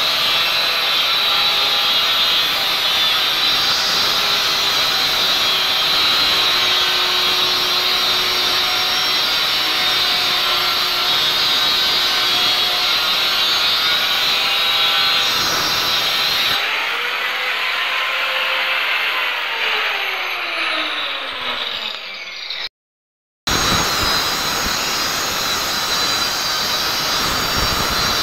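Handheld angle grinder cutting into a wall: loud steady grinding with a high motor whine. About two-thirds through, the disc comes off the wall and the motor winds down in a falling tone; after a short gap it is cutting at full speed again.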